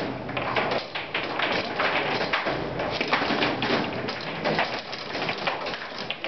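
Foosball (calcio balilla) table in fast play: a quick, irregular run of sharp clacks and knocks as the plastic players strike the ball and the rods are worked.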